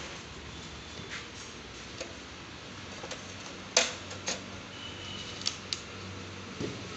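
Plastic concealed cistern tank and its cardboard packaging being handled as the tank is lifted out of the box: a few scattered light knocks and clicks, the sharpest one about four seconds in.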